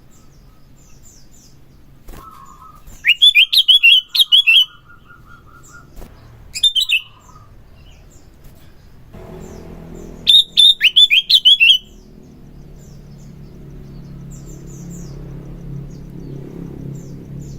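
Sooty-headed bulbul (kutilang) singing in three loud bursts of rapid, sharp chattering notes, with fainter high chirps between them. A low steady hum builds underneath from about halfway through.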